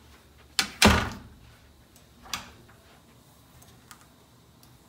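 A door shutting: a sharp click, then a loud heavy thunk about a second in, with a lighter knock a little later.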